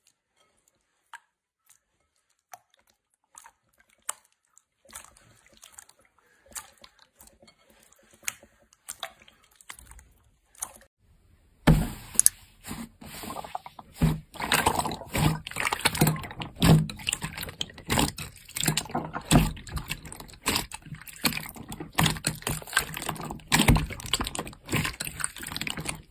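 Slime being handled by hand: wet, sticky clicks and pops, sparse and faint at first, then dense and much louder from about twelve seconds in.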